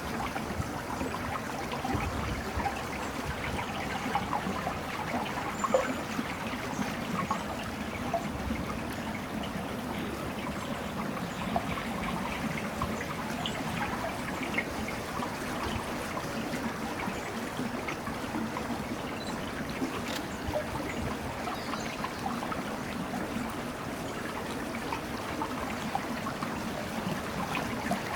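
Water trickling and lapping steadily, with small splashes scattered through it.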